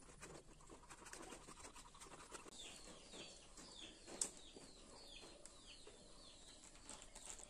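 Near silence with faint handling clicks while the cylinder block is fitted down over the piston, and one sharp click about four seconds in. A bird repeats a short, high, falling chirp about twice a second through the middle.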